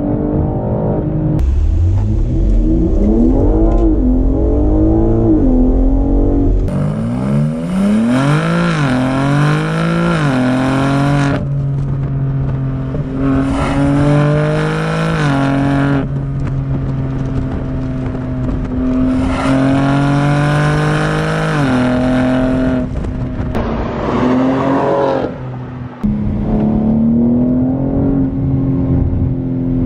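BMW G80 M3's twin-turbo S58 inline-six exhaust running through SSR race downpipes, in a run of edited clips: rising and falling rev sweeps under acceleration, and stretches of steady cruising, with the sound jumping at each cut. Some clips are recorded right at the exhaust tips, others inside the cabin.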